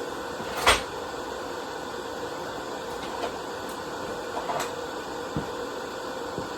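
A steady fan-like hum with one sharp clunk about a second in and a few lighter knocks and clicks later, as welding gear is handled during setup.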